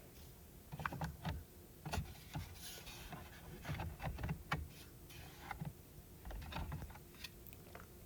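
Plastic steering column cover of a BMW 7 Series (E65/E66) being pried off with a trim tool: irregular clicks and knocks as the clips give, with a short scrape about three seconds in.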